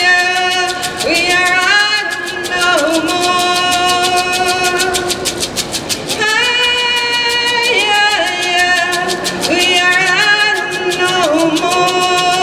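A woman singing an Indigenous song solo into a microphone, holding long notes that slide up and down between pitches, over a fast, even percussion beat.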